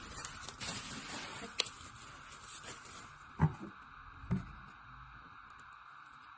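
Rustling and handling noise with small clicks, then two dull thumps about a second apart.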